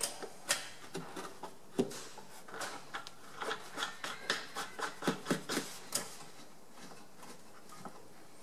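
Scattered light clicks and knocks of hands handling the lathe's covers and controls, irregular, fading out in the last couple of seconds. The lathe motor is not running.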